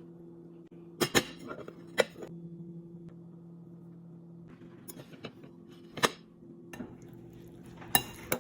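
Dishes and utensils being handled: several sharp clinks and knocks of glass or ceramic, the loudest about a second in, at two seconds, around six seconds and twice near the end, over a steady low hum.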